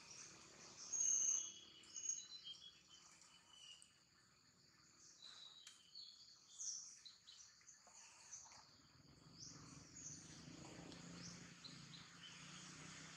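Faint outdoor ambience with short, high bird chirps and a light insect hiss, the loudest chirps about a second in.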